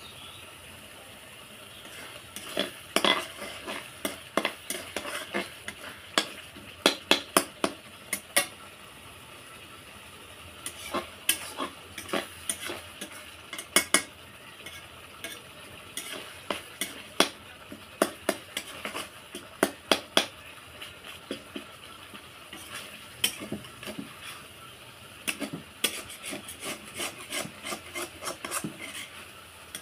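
Masala being roasted in hot oil in a pan, stirred with a cooking spoon that knocks and scrapes against the pan in irregular bursts over a steady low sizzle. Oil is separating from the masala, the stage at which it is nearly fully roasted.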